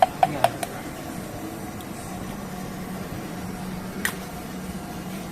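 Steady low hum and hiss with a few short sharp clicks, one pair near the start and one about four seconds in.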